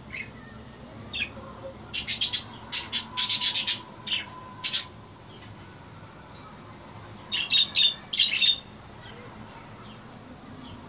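Caged budgerigars squawking in two bouts of rapid, harsh calls: one about two seconds in lasting a few seconds, another about seven seconds in.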